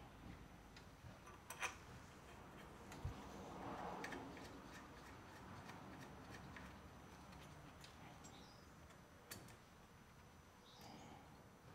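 Faint, scattered small clicks and light handling noises of metal parts as hands fit the carburettor onto a small vintage two-stroke engine, otherwise near silence.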